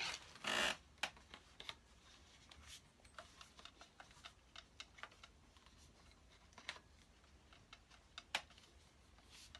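Parts of a metal detector being handled and fitted together: a short rustle or scrape about half a second in, then scattered light clicks and taps.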